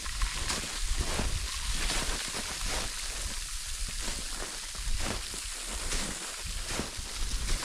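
Footsteps crunching on snow and ice, a short irregular strike every half second or so, over a steady wind rumble on the microphone.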